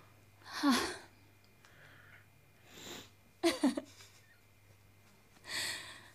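A woman crying: short sobbing, sniffling breaths in about five separate bursts, with a second or two of quiet between them.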